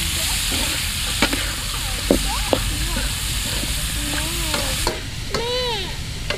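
Pork and cucumber stir-frying in a hot pan, a steady sizzle with occasional sharp clicks as the food is stirred. The sizzle falls away about five seconds in.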